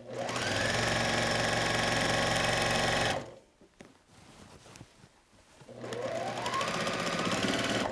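Electric sewing machine stitching a seam through thick wool on a muslin foundation, in two runs: it speeds up with a rising whine and runs steady for about three seconds, stops, then starts again past the middle, speeding up and running until the end.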